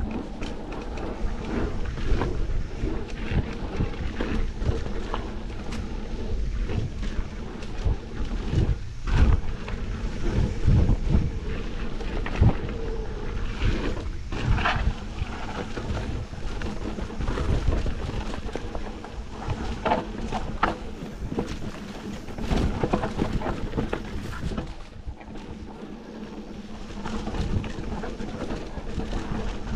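Mountain bike riding down a dirt and rock trail: wind buffeting the action camera's microphone and the bike rattling and knocking over roots and rocks, with frequent sharp bumps.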